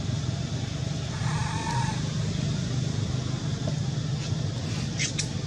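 A short, high, bleat-like macaque call about a second in, over a steady low hum. A few sharp clicks follow near the end.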